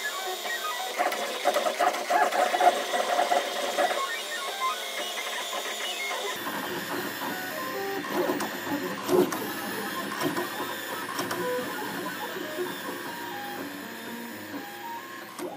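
MakerBot Replicator 5th Generation 3D printer's stepper motors running: a busy string of short whirring tones jumping in pitch as the print head moves. The sound changes character about six seconds in.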